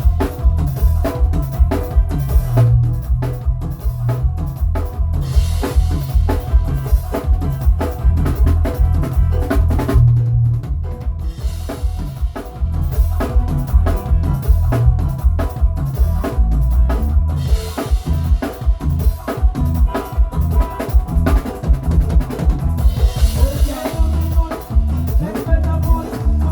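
Drum kit played in a busy groove: rapid bass-drum strokes under snare hits and rimshots, with steady tones of other instruments held underneath.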